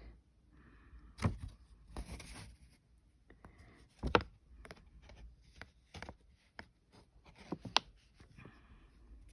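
Hands handling a paper instruction booklet: scattered taps, clicks and short rustles, the loudest a sharp knock about four seconds in.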